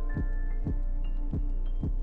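Background music: a deep steady bass with a beat about twice a second and held high synth notes over it.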